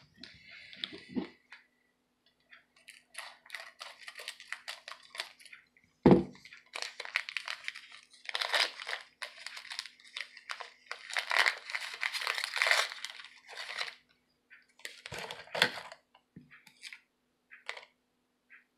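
Crinkling and rustling of plastic trading-card packaging being handled and opened, with a sharp thump about six seconds in and another knock near 15 seconds.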